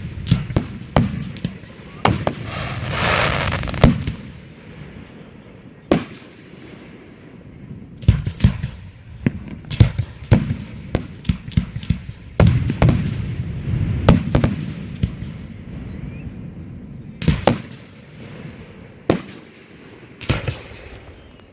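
Fireworks display: clusters of sharp bangs from bursting aerial shells, with rumbling echoes between them and a longer noisy stretch about two seconds in.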